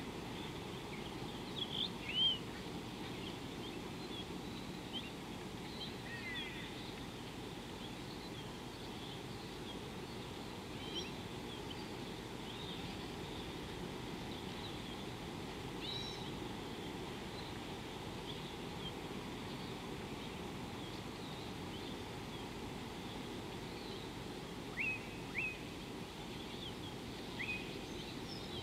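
Steady low background noise with scattered short bird chirps and calls throughout, a few louder ones about two seconds in and again near the end.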